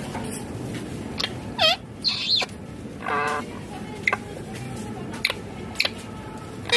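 Indian ringneck parakeet calling: several short, sharp chirps and squawks, among them a falling, warbled call about a second and a half in and a harsher, buzzier call about three seconds in.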